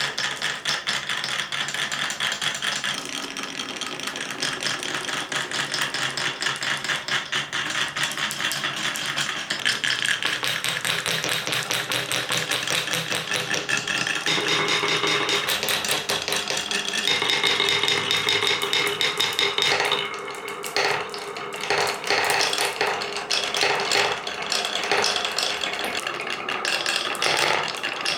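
Marbles rolling and clattering down a wooden marble run: a fast, dense rattle of small clicks as the balls knock along the wooden track pieces, with some ringing tones in the second half.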